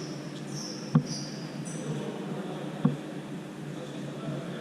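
Two sharp thumps of a futsal ball being struck, about two seconds apart, over the hum of a sports hall, with short high squeaks of sneakers on the court floor.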